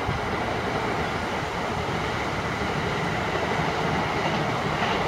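Steady rumbling outdoor noise with no distinct events.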